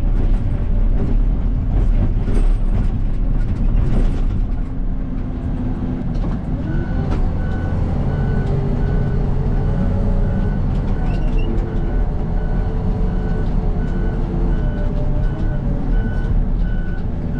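Case 800C motor grader's diesel engine running steadily at working speed. From about seven seconds in, its reversing alarm beeps evenly, about one and a half beeps a second, as the grader backs up.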